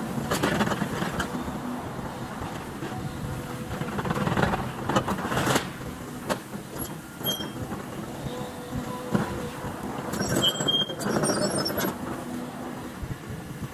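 Caterpillar excavator engine running under load while its bucket tears into a pile of steel framing, sheet metal and wood, with bursts of crashing and clattering debris near the start, around the middle and again towards the end.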